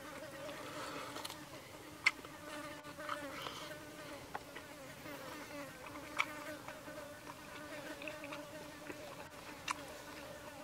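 Flying insects buzzing in a steady, slightly wavering drone, with three sharp clicks spread through it.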